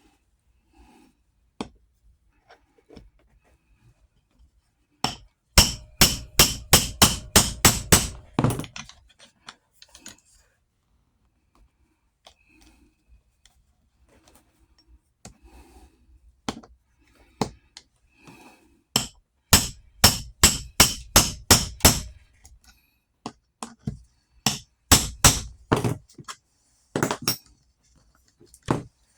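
Hammer blows in quick runs of roughly three strikes a second: three main runs of about five to ten blows each, with a few single taps between them.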